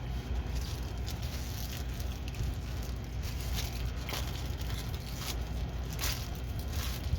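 Plastic packaging crinkling and rustling in bursts as it is handled, over a steady low hum.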